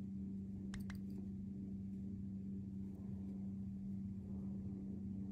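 Steady low hum of room tone, with two faint ticks about a second in.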